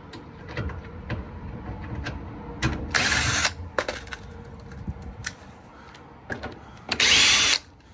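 Cordless drill-driver backing screws out of a dryer panel in two short runs, about three seconds in and again about seven seconds in, with small clicks and knocks of handling between.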